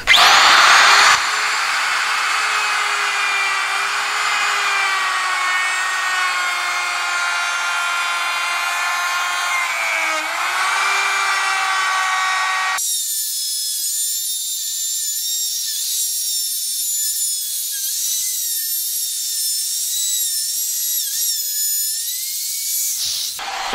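Handheld router with a bearing-guided bit cutting a groove around the inside edge of a poplar door frame's opening. It comes in loudest for about the first second, then settles into a steady high whine that wavers slightly in pitch as the bit loads in the wood. About halfway through, the lower part of the sound drops away abruptly, leaving a thinner, higher whine, and the router stops shortly before the end.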